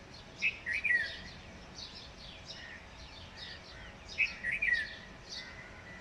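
Birds chirping: a quick run of short, high chirps, with two louder flurries, one about half a second to a second in and another just past four seconds.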